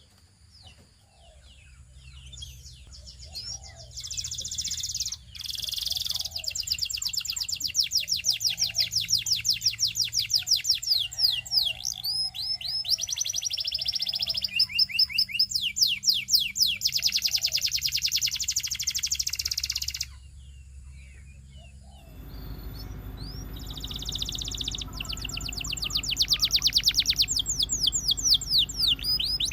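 Domestic canary singing long, fast trills and rolls of rapidly repeated high notes, broken by short pauses. The song comes in a few seconds after a near-quiet start, and about 22 seconds in a low steady hum rises under it.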